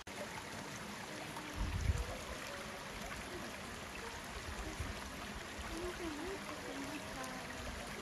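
A small mountain stream running steadily over rocks, with a brief low thump about two seconds in.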